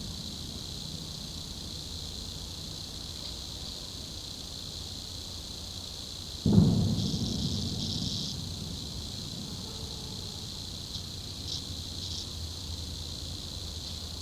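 A deep rumble from the sky, the 'strange noise', starting suddenly about six and a half seconds in and dying away over a couple of seconds. Under it runs a steady high-pitched hum, with a few short high chirps.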